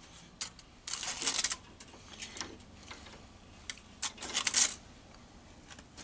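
Clicking and rattling as the soldered wire splice is handled and taken out of a bench vise, in short clusters, the two biggest about a second in and about four seconds in.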